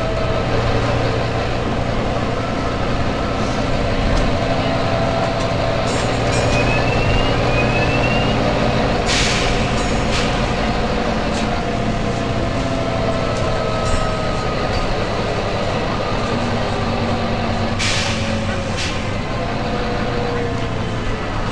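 Volvo B9TL bus's diesel engine running with a drone and a whine that shifts slowly in pitch. Two sharp blasts of hissing compressed air from its air brakes come about nine and eighteen seconds in, each followed by a shorter hiss.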